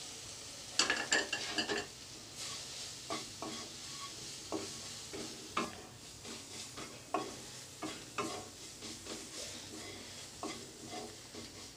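Spices being stirred into a masala frying in mustard oil in a kadai: a utensil scrapes and clinks against the pan in irregular strokes over a low sizzle.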